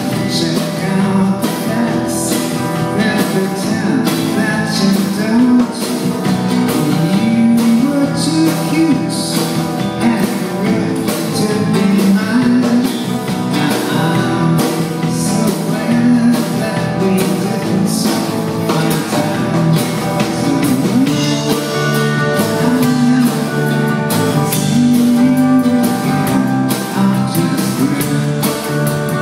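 Live band music: an acoustic guitar played with drums keeping a steady beat, with lines that may be a singing voice.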